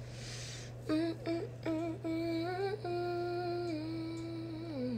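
A woman humming a short tune with her mouth closed: a few short notes about a second in, then a long held note that steps down in pitch toward the end. A short breath comes just before it starts.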